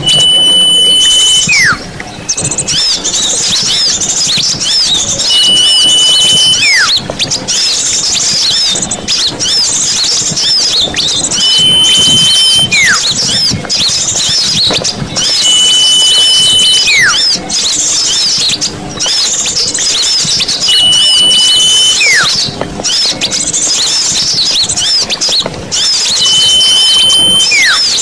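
Bird-lure recording of many small songbirds chattering and chirping densely. A held high whistle followed by a falling whistle repeats six times, about every five seconds.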